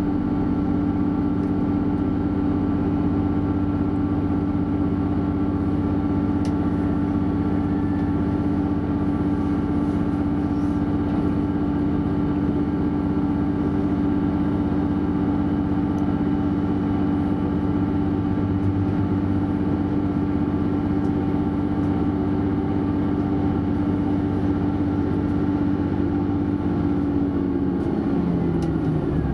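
Cabin sound of a DB Class 641 diesel railcar at speed: its diesel engine is running at steady high revs, a constant drone, over the rumble of the wheels on the rails. Near the end the engine note falls as the revs drop.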